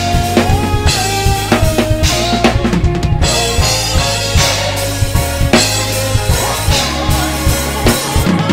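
Acoustic drum kit played live (kick, snare and cymbals) along with a recorded gospel song that carries a bass line and a melody bending in pitch.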